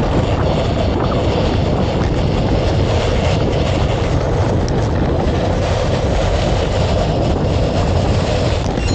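Steady rush of wind and rolling road noise from moving at speed, a loud even rumble heavy in the low end with no break.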